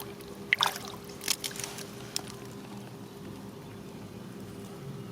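Water splashing and trickling, with a few short sharp splashes about half a second in and again around a second and a half, over a faint steady hum.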